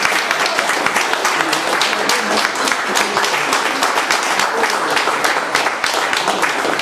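Crowd applauding: dense, steady clapping of many hands, with some voices underneath.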